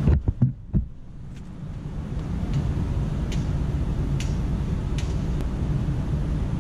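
Wind rumbling on the camera microphone: a few bumps in the first second, then a steady low rumble with a few faint ticks.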